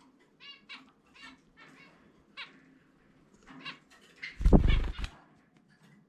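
Zebra finch chirping in a string of short, repeated calls. About four and a half seconds in comes a loud, half-second flutter of wings as the bird flies up off the hand.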